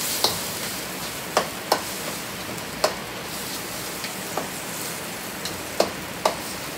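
Ground pork and vegetables sizzling in a black steel wok over a gas flame, stirred with a metal spatula. The spatula clanks sharply against the wok about eight times at uneven intervals.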